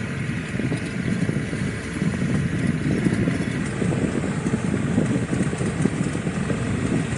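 Motorcycle engine running steadily while riding, heard mostly as a low rumble.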